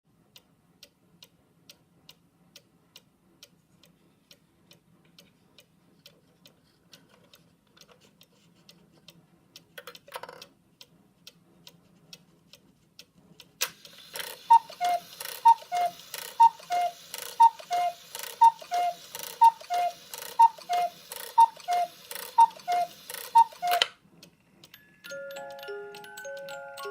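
Cuckoo clock ticking steadily, then striking: after a click, the two-note cuckoo call, high then low, repeats about ten times at roughly one a second over the hiss of its bellows. A music-box melody starts near the end.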